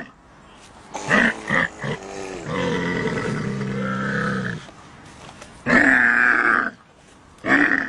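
Camel in labour vocalising: a few short grunts, then one long pitched groan lasting about two seconds, then more harsh calls.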